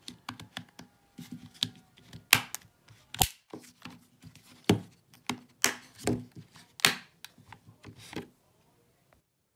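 Plastic clips of a Nissan 370Z power-window switch snapping and clicking as the switch is pushed back into its housing: an irregular run of sharp clicks and snaps, several of them loud, stopping about a second before the end.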